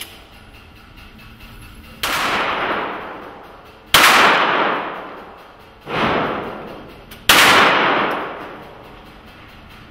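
Four handgun shots fired one at a time, a second and a half to two seconds apart, each followed by a long echoing decay.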